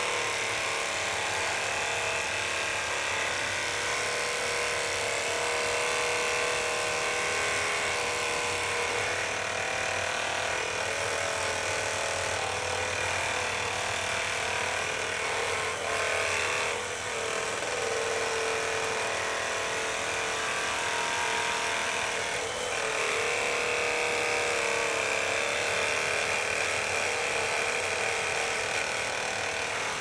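Electric pole saw's motor and chain running steadily as it cuts into an overhead tree limb, a continuous buzz that dips briefly twice, about halfway and two-thirds of the way through.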